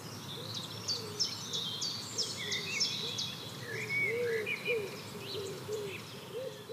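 Birds chirping and twittering with quick high notes, over a steady series of short, low calls about twice a second.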